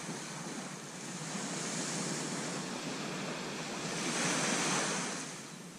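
Surf washing on a sandy beach, with wind on the microphone. The noise swells about two seconds in and again, louder, around four to five seconds in.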